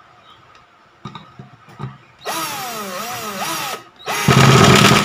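Black & Decker GC1800 18 V cordless drill/driver driving a long screw into hardwood. Its motor whine drops in pitch under load three times. About four seconds in, the clutch, set to torque 10, slips with a loud rapid clatter.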